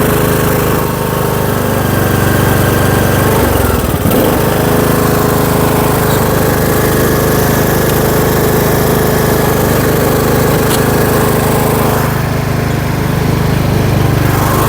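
Riding lawn mower engine running steadily while towing a car by a strap. Its pitch dips briefly about four seconds in, then recovers.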